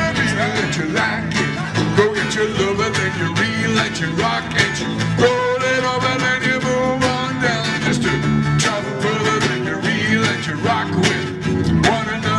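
Live band playing a sixties pop song with a steady beat.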